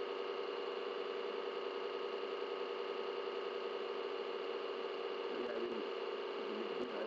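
Steady electrical hum and hiss of the recording's noise floor, unchanging throughout.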